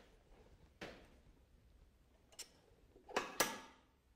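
Faint metal-on-metal clinks with a short ring from the TM Technologies air power hammer's die assembly as the dies are lined up by hand: one about a second in, one near the middle, and a quick double clink near the end, the loudest.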